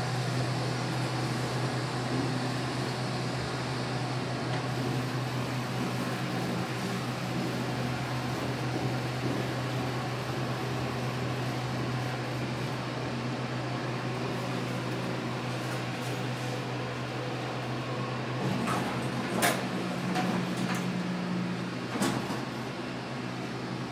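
Vintage Otis traction elevator car in motion, a steady low hum inside the car. Near the end the hum changes and two sharp clicks come a couple of seconds apart as the car stops and the doors start to open.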